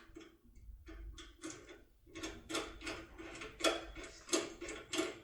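Locksmith's decoder tool being worked in a TESA T80 lock cylinder: a series of short metallic clicks and scrapes, about two to three a second, growing louder after about two seconds.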